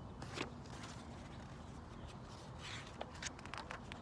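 Scattered soft rustles and clicks of a paper picture book being handled and shifted, a few near the start and a quick cluster near the end, over a faint steady background.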